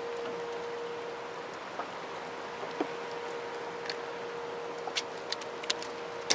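Steady rush of water churning below a dam's open generating gates, with a faint steady hum. A few sharp clicks and knocks in the last couple of seconds as a fish is unhooked by hand on the boat.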